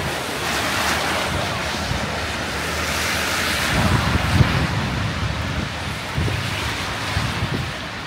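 Strong wind gusting, a steady rushing hiss that swells and eases, with gusts buffeting the microphone in low rumbles, the strongest about four seconds in.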